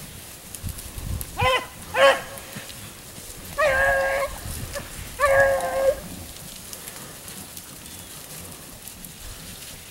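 Beagle hounds baying on a cottontail rabbit's trail: two short chop barks, then two longer drawn-out bawls, after which the baying stops.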